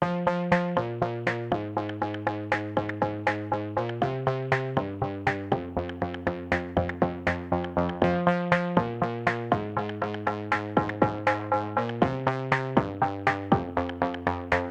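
Background music: electronic synth music with a steady pulse of short notes, about four a second, over held chords that change every second or so.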